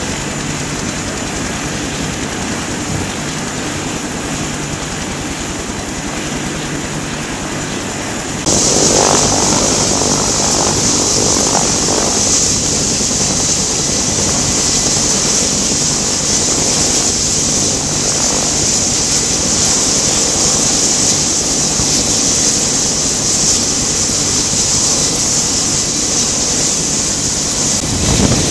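AH-1W Super Cobra attack helicopter running on the ground, its turbines and turning rotor giving a steady low hum. About eight seconds in the sound switches abruptly to louder aircraft turbine noise with a strong steady high hiss, from aircraft running on the refuelling ramp. A brief low thump comes right at the end.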